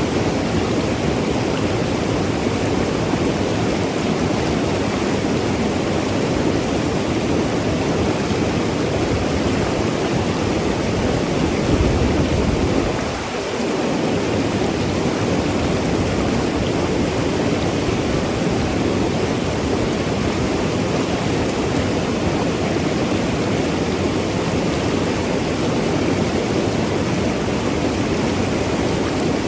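Mountain river rushing and gurgling over rocks, a steady deep wash of water. It swells briefly about halfway through, then dips for a moment.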